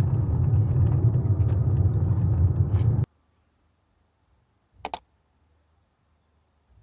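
Steady low rumble of a moving vehicle, which cuts off suddenly about three seconds in. Near silence follows, with one short, sharp double click about halfway through the silence.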